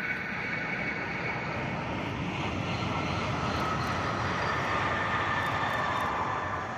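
Renfe Class 120 electric multiple unit passing at speed in the distance: a steady rush of running noise with a faint whine that swells midway and eases near the end.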